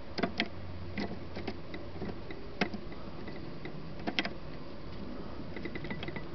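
Scattered light clicks and taps from a vintage Victor wooden gumball machine's metal and glass parts as it is handled and opened up.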